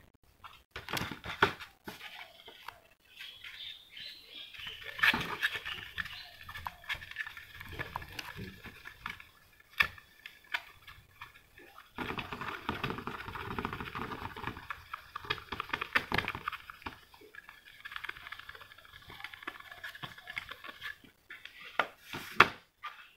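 A polishing cloth rubbed quickly back and forth over a hard-plastic model car body with medium-grade polishing compound, a scratchy scrubbing in long spells. A few sharp clicks come in between.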